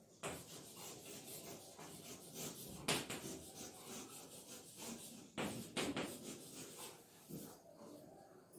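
Chalk scratching across a blackboard as words are written, with a few sharper taps as the chalk strikes the board.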